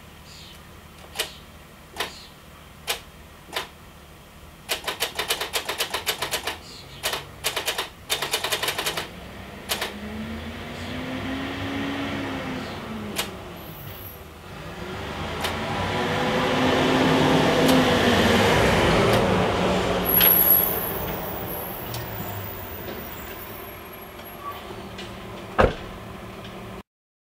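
Several single clicks, then a run of fast ticking lasting about four seconds, like a GM pickup's door-open chime. Then vehicle noise swells and fades twice, with its pitch rising and falling; the second swell is the louder and longer. A sharp click comes near the end.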